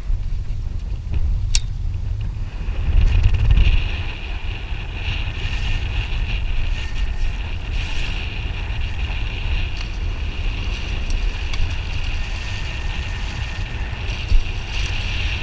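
Strong wind buffeting the microphone, a steady low rumble that swells briefly about three seconds in. From about three seconds in a steady high-pitched whine runs underneath it.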